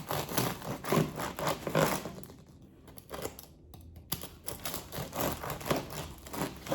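A serrated bread knife sawing through the crisp crust of a freshly baked cinnamon raisin sourdough loaf, with dense crackling and crunching in two bouts and a short pause about two seconds in.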